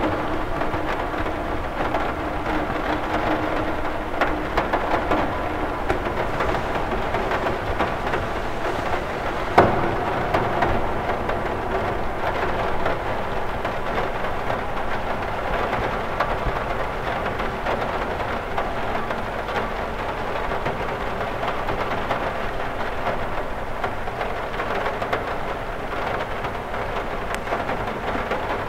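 Steady rain falling on a cathedral window, a continuous hiss with many small drop taps. One sharper tap about ten seconds in is the loudest moment.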